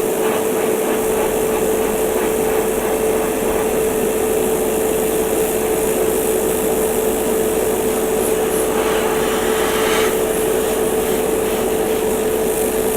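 Airbrush compressor running with a steady hum, and the hiss of air and primer spraying through the airbrush. The airbrush sounds as if it is blocked, which its user suspects it probably is.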